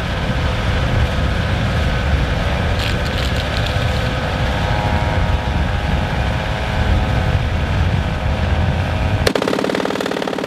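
Sustained rapid fire from the Avenger air-defence vehicle's 12.7 mm (.50 calibre) machine gun. Near the end it turns into a sharper, crisper burst that stops abruptly.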